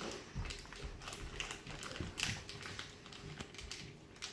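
Scattered taps, clicks and rustles of a package being worked open by hand, irregular and fairly quiet.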